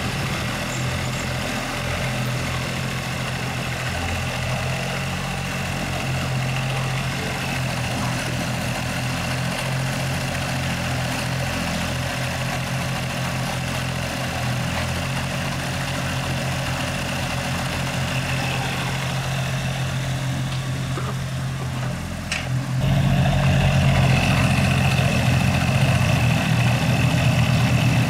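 Engine of a mini crawler excavator running steadily, with a single click, then suddenly louder for the last five seconds or so.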